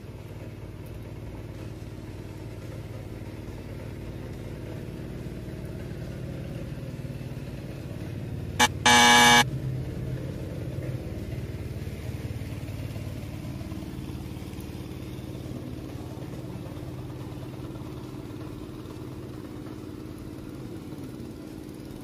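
A motor vehicle engine running steadily. About nine seconds in, a horn gives a quick beep and then a half-second honk.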